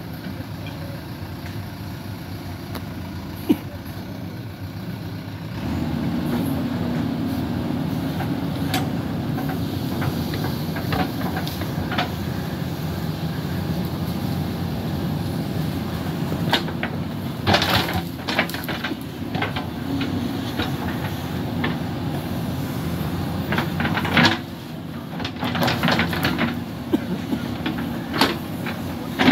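JCB 3DX backhoe loader's diesel engine running steadily, rising to a louder working pitch about five seconds in as the hydraulic backhoe arm works. The steel bucket scrapes and knocks against soil and stones several times in the second half.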